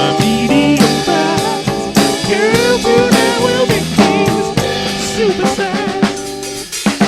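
Instrumental break in a slow soul song: a drum kit playing a steady beat with snare and kick under sustained chords and a bending, sliding lead melody line.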